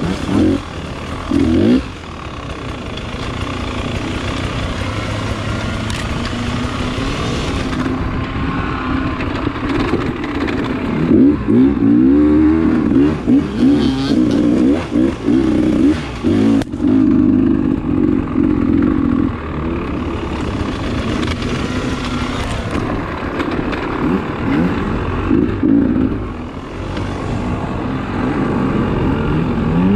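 Dirt bike engine heard from the riding bike, revving up and down again and again as the throttle is rolled on and chopped, with brief drops in level between bursts.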